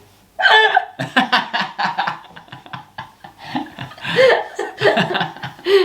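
People laughing in quick, repeated bursts, with a little talk mixed in.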